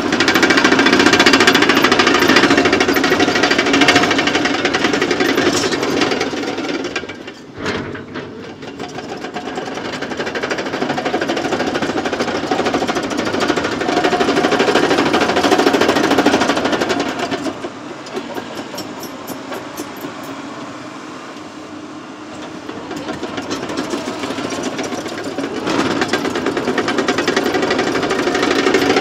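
Caterpillar 963K tracked loader working: diesel engine under load with a rapid metallic clatter from its steel tracks, the level rising and falling several times as the machine moves.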